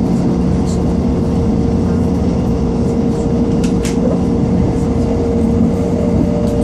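Inside a Class 158 diesel multiple unit running at speed: a steady engine drone with the rumble of wheels on the rails, and two short clicks a little under four seconds in.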